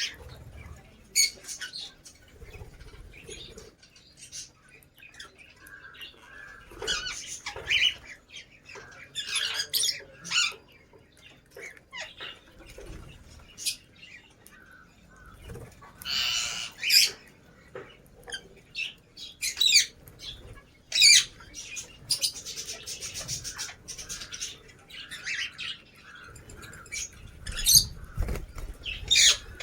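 Lovebirds chirping and squawking in short, sharp, high calls that come irregularly, some loud, with quieter stretches between.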